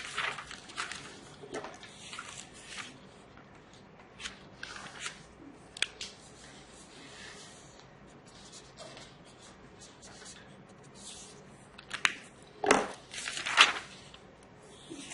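Paper handling on a textbook: pages rustling and a marker pen scratching as it writes, in short irregular strokes with a few sharp taps. A few louder paper rustles come near the end.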